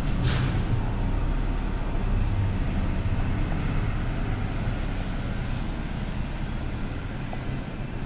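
Steady low rumbling background noise with a fainter hiss above it, even throughout.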